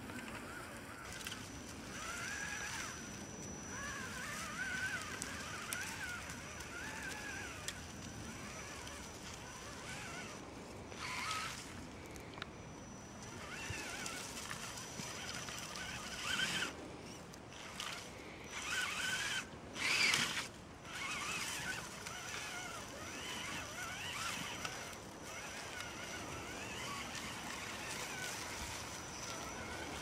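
Electric motor and gearbox of a scale RC crawler whining, the pitch rising and falling with the throttle as it climbs through undergrowth, with several short bursts of brush and twigs scraping against the truck, the loudest about two-thirds of the way in.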